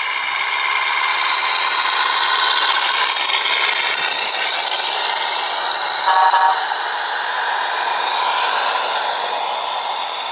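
Radio-controlled scale model trucks running steadily along the track. About six seconds in, one short horn toot.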